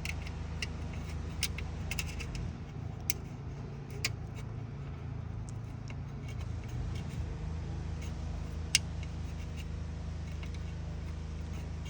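Scattered small metallic clicks and taps of a bolt being started by hand into the seat counterweight's mounting, one sharper click about nine seconds in, over a steady low hum.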